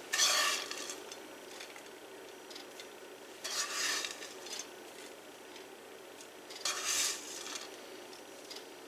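A spoon scraping and scooping buttered cracker crumbs out of a nonstick skillet, three short scrapes about three seconds apart.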